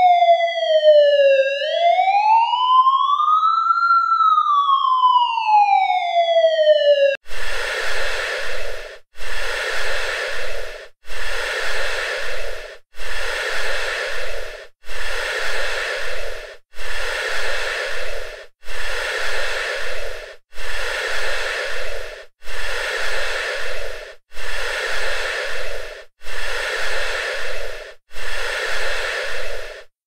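US ambulance siren wailing: the tone falls, rises and falls again, then cuts off suddenly about seven seconds in. It is followed by a mechanical ventilator (artificial respirator) cycling, with a rhythmic whooshing pulse about every two seconds separated by short gaps.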